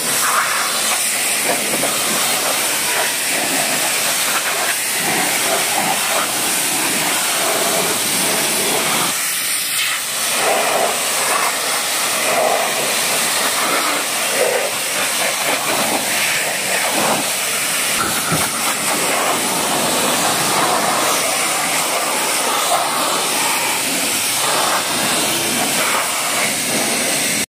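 High-pressure water jet from a pressure-washer wand hissing steadily as it blasts a car's body panels, windows and bumper, with the spatter of water off the metal.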